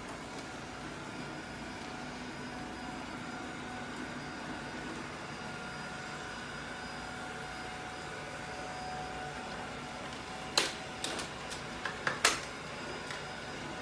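ILIFE V10 robot vacuum running with a steady motor and fan hum and a faint whine. A cluster of sharp knocks comes near the end.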